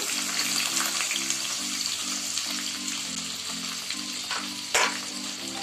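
Freshly chopped onions sizzling steadily as they fry in hot oil with mustard seeds, cumin and curry leaves in a pan. A sharp tap sounds near the end.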